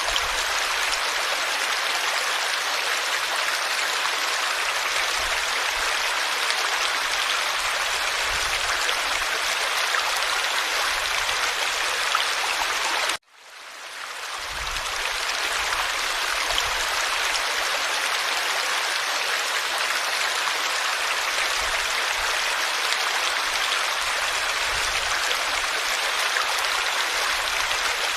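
Forest stream flowing steadily. About thirteen seconds in, the sound cuts out abruptly and fades back in.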